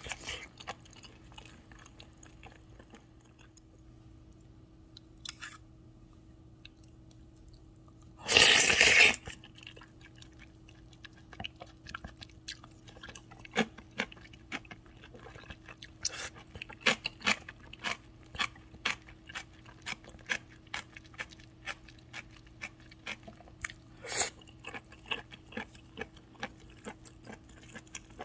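Close-miked eating: about eight seconds in, one loud slurp lasting about a second, then crisp crunching and chewing of kimchi, a few crunches a second. A faint steady hum runs underneath.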